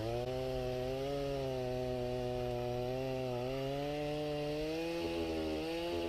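Stihl chainsaw running at full throttle, cutting through a maple burl log. The engine note holds steady and wavers slightly as the chain bites into the wood.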